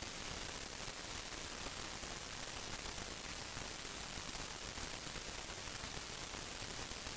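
Steady hiss of an open recording microphone's noise floor, with no other distinct sound.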